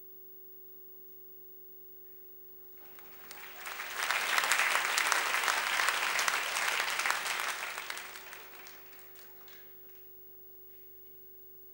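Audience applause that starts about three seconds in, holds for several seconds and fades out before the end. A faint steady hum runs underneath.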